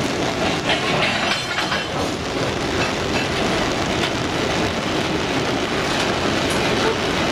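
Freight train of covered hopper cars rolling past close by: a steady rumble of steel wheels on rail, with irregular clacks as the wheels cross rail joints.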